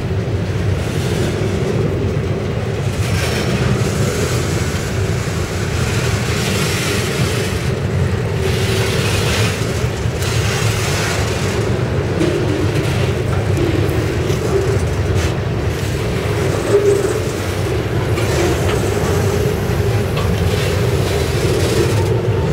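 Freight train of rail-loaded gondola cars rolling past close by: steel wheels on the rails make a steady rumble, with scattered knocks from the cars and a louder single knock near the end.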